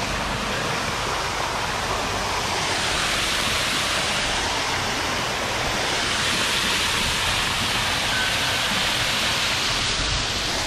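Artificial rock waterfall pouring into a shallow pool: a steady rush of falling, splashing water, fullest around the middle.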